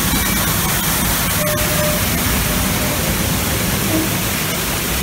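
Artificial waterfall pouring and splashing right beside a passing ride-train car: a loud, steady rush of falling water over a low rumble from the train.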